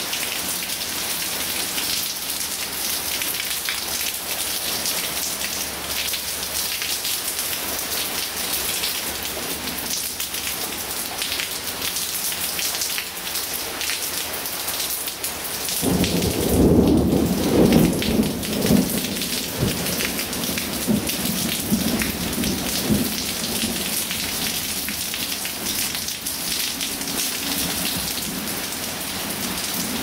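Heavy rain falling with a steady hiss. About halfway through, a sudden loud rumble of thunder breaks in and rolls on for several seconds before fading back under the rain.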